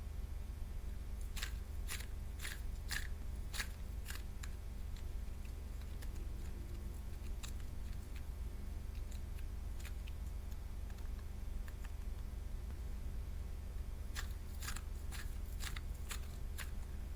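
Sharp, crisp clicks in two runs: about seven within three seconds, a long pause, then another run near the end, over a steady low hum.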